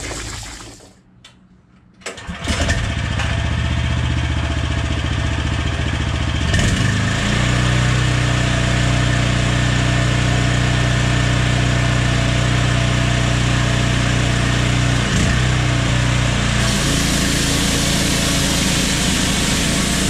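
A pressure washer's 14 horsepower Loncin petrol engine starts about two seconds in and runs steadily, its note changing about six seconds in. Near the end a loud hiss joins it as the high-pressure water jets through a Whirlaway flat surface cleaner.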